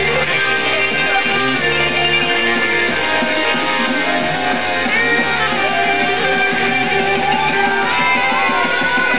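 Live electronic dance music played loud through a concert sound system, recorded from near the front of the stage. A held, sliding melody line rises slowly over a shifting low bass line.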